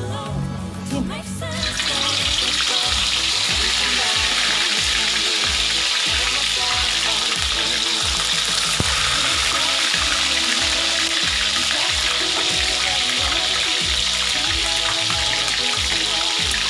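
Pieces of spice-marinated, pre-boiled chicken deep-frying in hot oil in a wok: a steady sizzle that starts suddenly about two seconds in, as the chicken goes into the oil.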